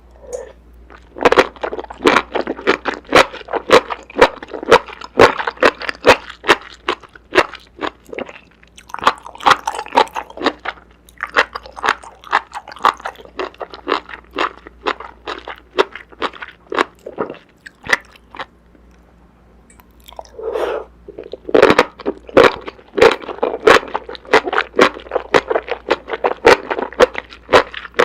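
Close-miked eating: crunchy bites and chewing in quick runs of crunches, broken by two short pauses.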